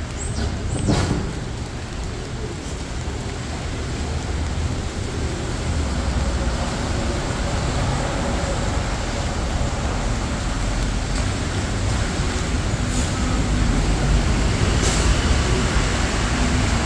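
City street traffic running steadily: a low rumble of engines and tyres from passing vehicles, with a short louder sound about a second in.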